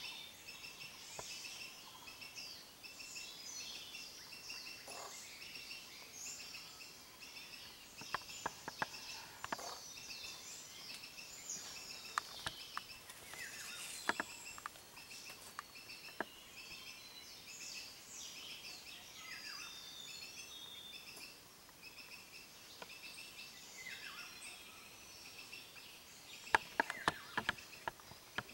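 Jungle birds chirping and calling, over a steady run of rapid, evenly repeated high chirps. Scattered sharp clicks come through the middle and near the end.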